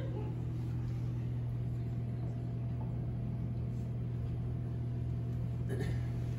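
Steady low background hum at an even level, with several faint steady tones above a strong low drone.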